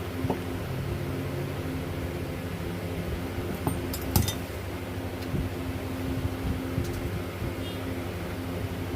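Steady mechanical hum, like a fan running, with a few sharp metallic clicks a little before halfway.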